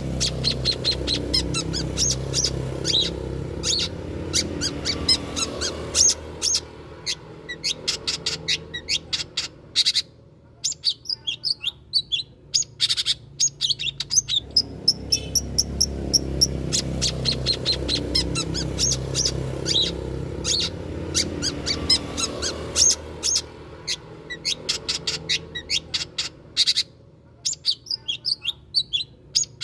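Long-tailed shrike (cendet) song: fast runs of sharp, high chirps and varied notes with short pauses, the same passage repeating about halfway through, over a steady low rumble.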